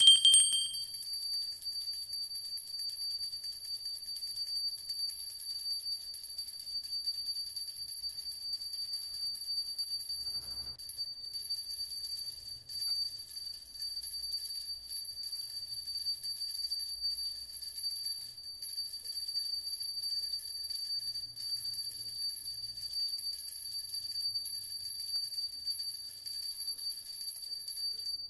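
A steady high-pitched ringing tone, held unbroken, with a fainter tone an octave above it.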